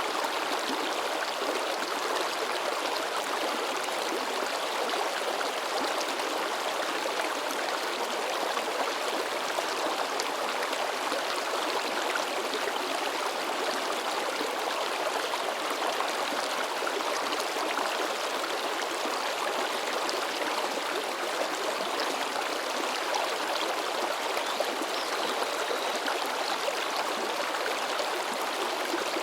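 A river babbling and splashing over rocks, a steady, unbroken rush of water.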